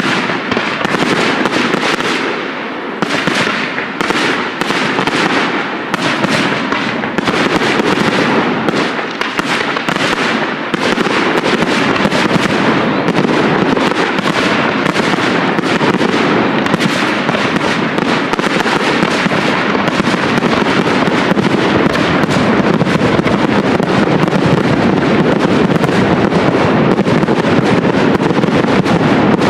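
Aerial fireworks display: a rapid barrage of shell bursts and crackling. The bangs come separately at first and run together into an almost unbroken, steady din from about a third of the way in.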